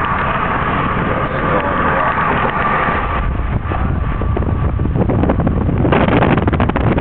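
Road and wind noise inside a moving car at highway speed, with wind buffeting the microphone. A faint steady hum fades about three seconds in, and the wind noise grows louder and choppier about six seconds in.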